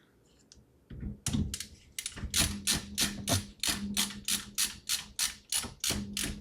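Screwdriver clicking steadily, about four or five clicks a second, as a screw is driven in to fasten a part down. The clicking starts about a second in.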